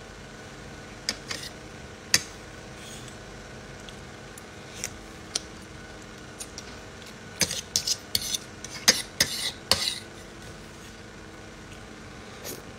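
Cutlery clinking against a dish while eating: a few scattered clinks, then a quicker run of them past the middle.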